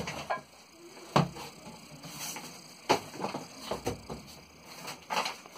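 Large cardboard shipping box being opened and handled: flaps folded back, with rustling and several sharp knocks of cardboard, about a second, three seconds and five seconds in.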